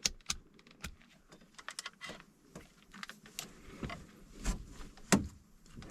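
Small clicks and handling noises as a multimeter and its test leads are picked up and set to take a voltage reading, with a sharper knock about five seconds in.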